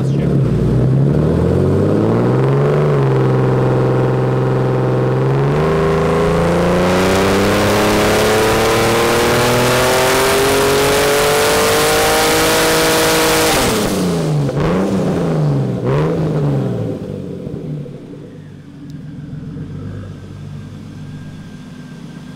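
Turbocharged BMW E36 M3 straight-six running a dyno pull on a Dynapack hub dyno: the revs climb and hold briefly, then rise steadily at full throttle for about eight seconds with a loud rushing hiss over the engine note. The throttle is then closed, the revs fall with two short dips and rises, and the engine settles to idle.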